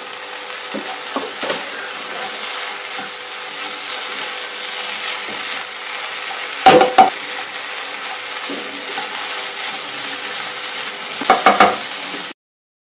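Okra, egg and coconut thoran sizzling as it is stirred and scraped with a spatula in a nonstick kadai, with two loud knocks of the spatula on the pan about seven seconds in and a quick run of knocks near the end. The sound cuts off abruptly just before the end.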